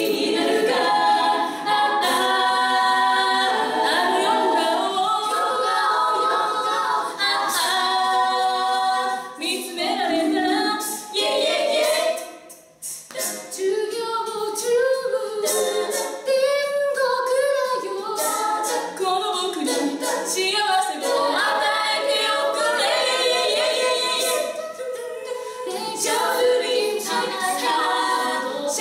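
Women's a cappella group singing together in harmony, several voices with no instruments, with a short break in the singing about twelve seconds in.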